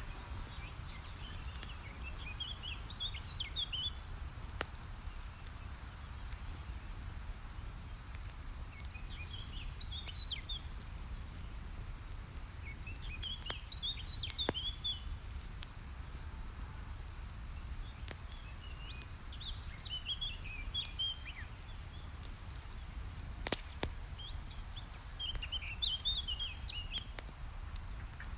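A songbird singing short, quick twittering phrases about every five or six seconds, five phrases in all, over a steady low outdoor noise, with a few sharp pops of a crackling campfire.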